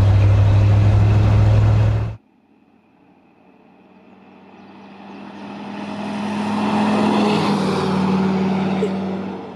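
1967 Ford F-250 ramp truck heard from inside the cab: a steady low engine drone at road speed that cuts off about two seconds in. Then the truck, carrying a car on its ramp bed, is heard from the roadside. It approaches from far off, grows loud and passes by, its engine note dropping slightly in pitch as it goes past, then fades away.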